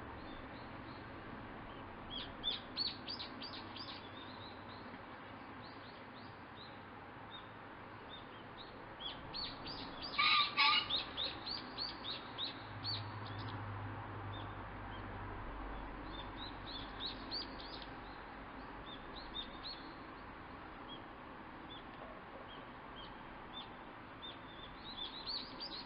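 Male green pheasant crowing once, a short, loud, harsh call about ten seconds in. Small birds chirp throughout.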